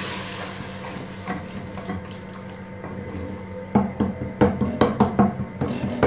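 Wooden spoon stirring a thick masala in an aluminium pot, knocking and scraping against the pot's sides in a quick run of about ten strokes over the last two seconds.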